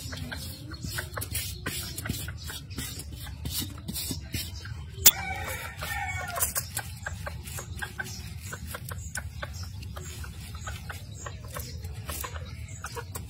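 Aluminium foil crinkling and clicking under hands as food is handled on it, with the sharpest click about five seconds in. A hen clucks briefly just after that, over a low steady rumble.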